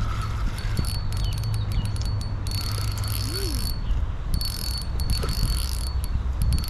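Insects chirring in stretches of about a second, over a steady low rumble.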